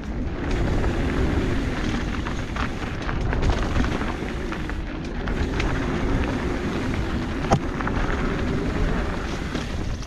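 Mountain bike being ridden on a dirt trail: heavy wind rumble on the camera microphone over tyre and trail noise, with small rattles and one sharp knock about seven and a half seconds in.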